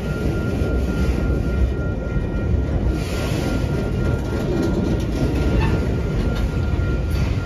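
Freight train of autorack cars rolling past: a loud, steady rumble of steel wheels on the rails.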